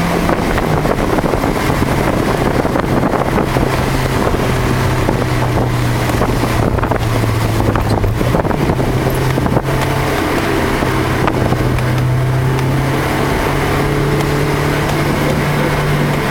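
Car engine pulling hard around a wet track, heard from inside the cabin over a steady hiss of wind and road noise. The engine note drops about a second in, then climbs slowly and shifts again partway through as the driver works the throttle and gears.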